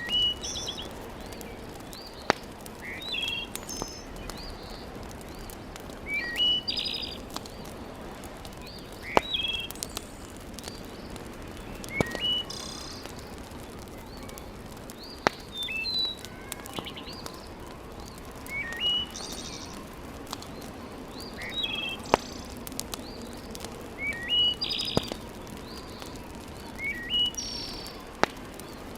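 A bird singing short chirping phrases about every three seconds, over a steady low background hiss. Sharp, isolated pops from a burning wood fire come every few seconds and are the loudest sounds.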